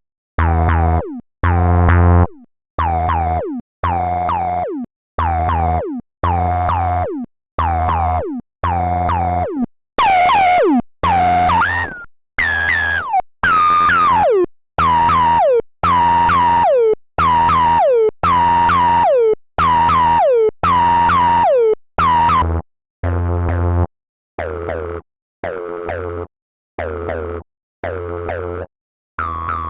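Short, distorted synthesizer notes repeating about once a second, each cut off sharply, with a resonant tone sliding down in pitch inside every note. About ten seconds in, the notes get louder and the slide starts higher; from about twenty-three seconds they drop back quieter.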